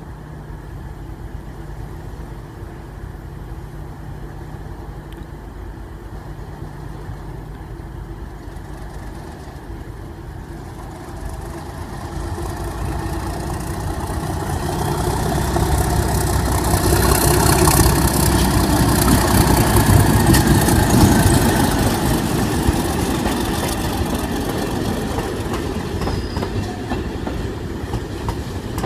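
Class 37 diesel locomotive with its English Electric V12 engine. A low steady engine note swells as the locomotive draws near and passes, loudest about 17 to 22 seconds in. It is followed by test-train coaches rolling past, their wheels clicking over the rail joints.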